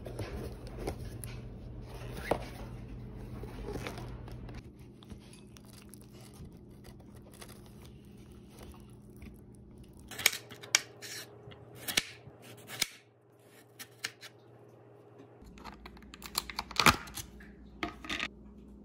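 Food packaging being handled: paper and plastic crinkling and rustling, with clusters of sharp clicks and taps about halfway through and again near the end.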